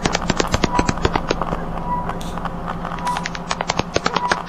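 Dense, irregular crackling clicks, about ten a second, over a steady low hum, with a short high beep repeating a little more than once a second.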